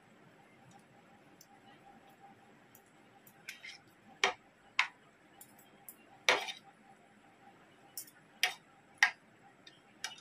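Metal spoon and fork clinking and scraping against a ceramic plate while eating, a series of irregularly spaced sharp clicks, most of them from about three seconds in.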